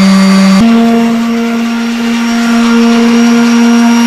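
Random orbital sander running steadily as it is worked over rusty paint on a car's wheel arch, a loud, even motor hum. Its pitch steps up slightly about half a second in.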